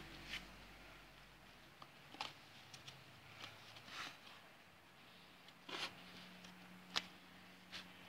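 Faint rustles, light scrapes and taps of paper and card as a cardboard model is handled, a handful of short ones spread through, the sharpest about seven seconds in.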